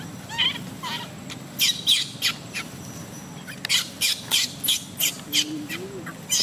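Baby monkey squealing: many short, high-pitched cries that drop in pitch, coming in quick runs.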